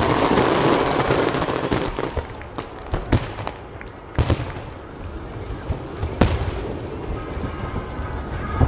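Fireworks display: a dense crackling that dies away over the first two seconds, then single sharp bangs about three, four and six seconds in and another at the end.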